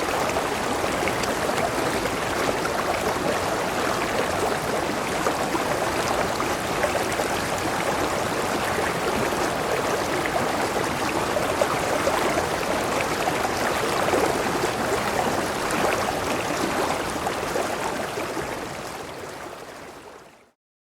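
Running water, a steady wash of flowing water that fades out to silence near the end.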